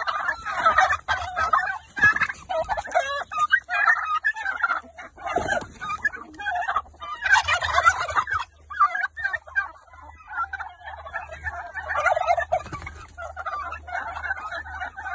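A flock of domestic turkeys calling, rapid overlapping gobbling and clucking that goes on in bursts with short pauses.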